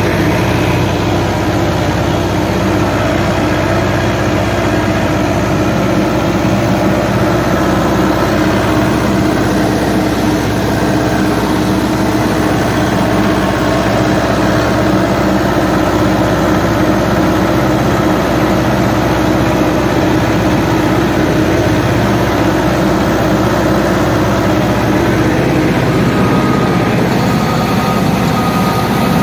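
Tractor engine running steadily while the tractor pulls a tillage implement through corn stubble, heard from on the tractor. A higher steady whine joins near the end.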